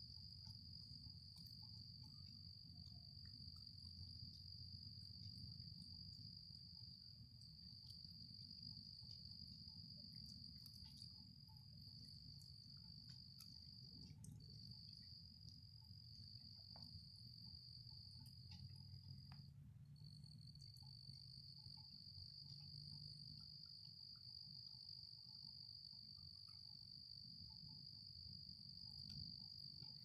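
A cricket-like insect trilling in one high, continuous note that breaks off briefly twice around the middle, over a low steady rumble.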